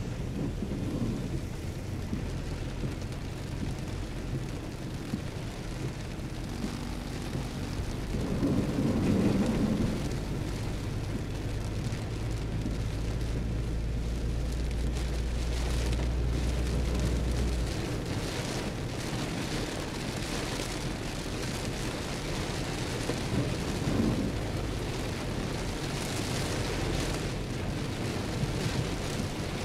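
Heavy rain pattering on a moving car's roof and windshield, heard from inside the car, with tyre hiss on the wet road and a low engine hum. A louder swell comes about nine seconds in, and a deeper low drone runs through the middle and cuts off suddenly.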